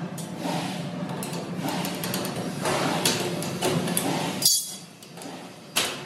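Sheet-steel rack parts clinking and knocking as a shelf panel is slotted into the perforated upright of a supermarket shelving rack, with a few sharp metal clanks in the second half.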